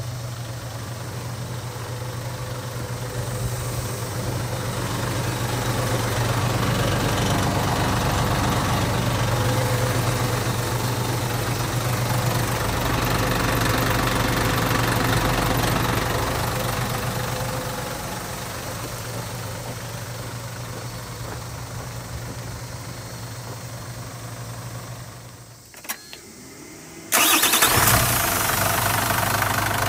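Mitsubishi Fuso Fighter Mignon's 6D17 inline-six diesel idling steadily. Near the end it briefly drops away with a single click, then comes back much louder and harsher, heard up close at the open engine bay.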